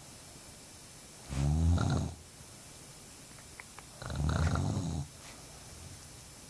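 A sleeping woman snoring loudly, two long rattling snores with breaths between, each snore lasting about a second.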